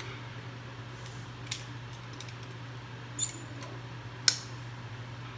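A few sharp metal clinks, the loudest two about three and four seconds in, as a metal hand tool knocks against the conga drum's metal rim while the rawhide head is pulled and tensioned over it. A steady low hum runs underneath.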